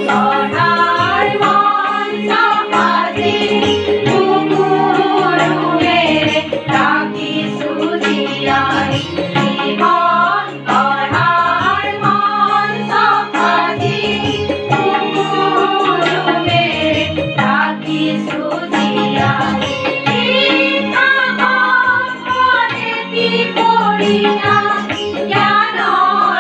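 A group of women singing a melody together, accompanied by a sitar and a tabla.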